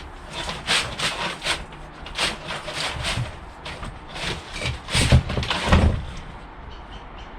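Electrical cable being pulled through 10mm conduit: irregular rubbing and scraping strokes, heaviest about five to six seconds in, then easing off.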